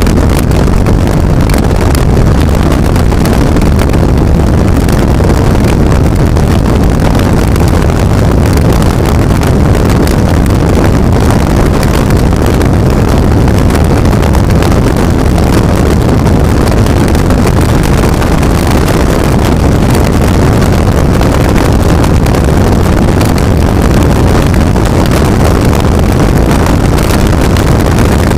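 Skater powerboat's Chief Custom engines running flat out at full throttle, a loud steady drone heard from on board, with wind buffeting the microphone.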